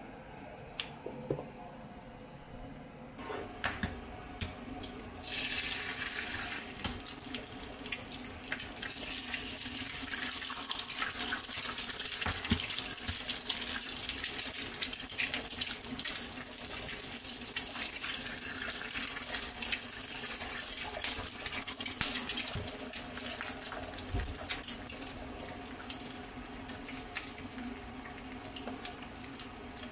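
Eggs frying in oil in a nonstick pan, a steady dense sizzling and crackling that starts about four to five seconds in after a quieter opening.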